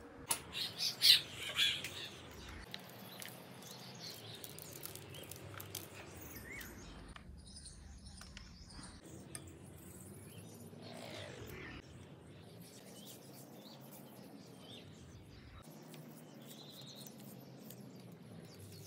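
A bird chirping several times in quick succession about a second in, followed by scattered faint clicks of a small knife cutting vegetables held in the hand.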